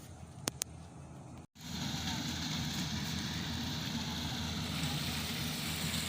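Two sharp clicks, then after a brief break about a second and a half in, a Yanmar AW-70V corn harvester running steadily.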